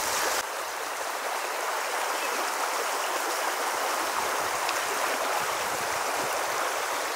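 Small mountain creek running over a shallow cobble riffle: a steady rush of water.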